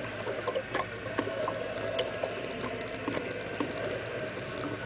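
Kayak paddle strokes: the blades dip and pull through the water, with a string of small, irregular splashes and drips close to the bow.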